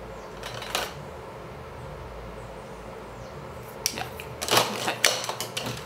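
Small clicks and light clatter of cosmetic pencils being handled. There is one click early on, then a quick run of sharp clicks and knocks in the last two seconds.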